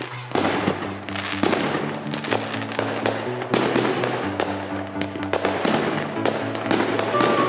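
Aerial firework shells bursting one after another in quick, irregular succession, each a sharp crack, over music with long held notes.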